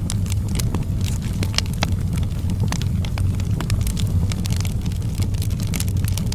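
Wood fire burning in a fireplace: frequent, irregular sharp crackles and pops over a steady low rumble.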